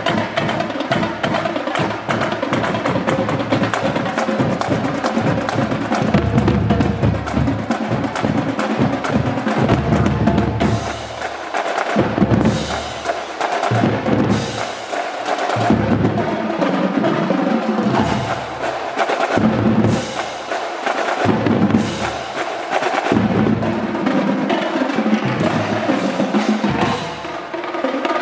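Marching band playing, led by its drum line: snare drums, bass drums and other percussion beating a steady rhythm, with rolls.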